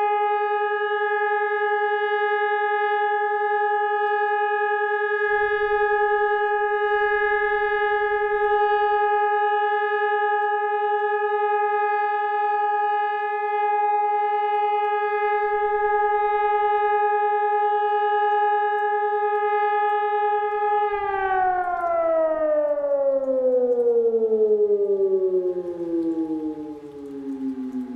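Hörmann ECN 600 electronic civil-defence siren holding a single steady tone, the one-minute continuous all-clear signal (Entwarnung). About three-quarters of the way through the tone is released and slides steadily down in pitch as the siren winds down.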